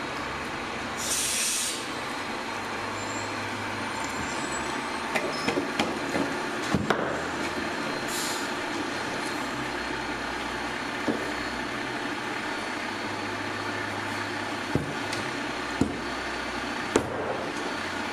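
Steady background hum of workshop machinery or a fan, with two short hisses, one about a second in and one around eight seconds, and scattered light taps and clicks of parts being handled on the workbench.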